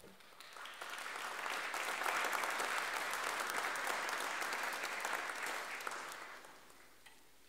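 Audience applauding: the clapping builds over the first couple of seconds, holds, then dies away near the end.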